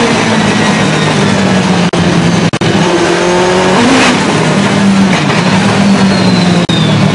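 Ferrari 430 GT2 race car's V8 engine running hard under racing load, heard from inside the cockpit, its pitch shifting up and down through the corners. A few very short, sharp breaks in the sound come about two seconds in and again near the end.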